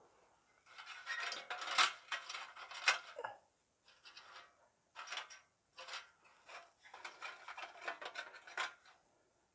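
Homemade metal hobo stove with bolted-on metal-plate legs being handled: a run of metal clinks, rattles and scrapes, then a few separate knocks and more scraping.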